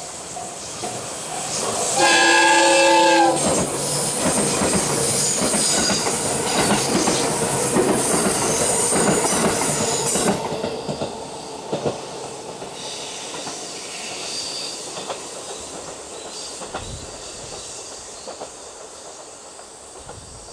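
A level-crossing warning bell rings with a repeating tone. About two seconds in, a JR 221 series electric train sounds its horn once for a little over a second, then passes close by with loud wheel and rail clatter for about seven seconds before fading away.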